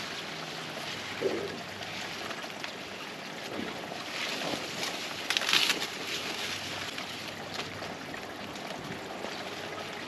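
Dry corn stalks and leaves rustling and crackling as they are pushed aside and handled, louder for a moment about five and a half seconds in.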